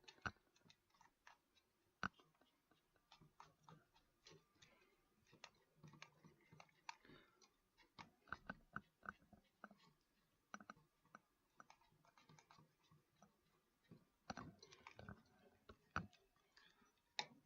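Faint, irregular small clicks and ticks as the Corsair H55 water block's mounting screws are turned down onto the CPU bracket.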